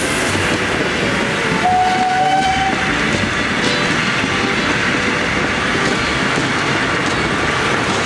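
Museum train of old passenger coaches, pushed by a diesel locomotive, rolling slowly past close by: steady rumble and clatter of the wheels on the rails, with a brief thin tone about two seconds in.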